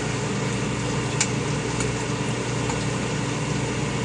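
Microwave oven running with a steady hum while raw eggs heat inside; a single faint tick about a second in.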